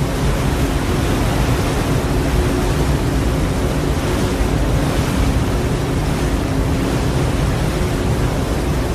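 Steady rush of wind and water from a moving motorboat, with a steady engine drone underneath.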